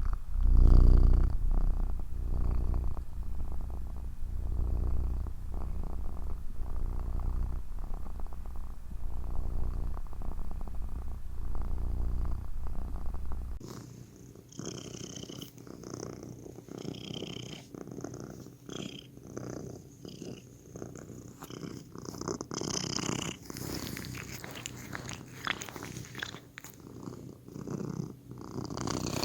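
Domestic cat purring in a steady pulsing rumble, close to the microphone. About halfway through the deep low rumble drops away and the purr goes on thinner, with soft clicks and crackles over it.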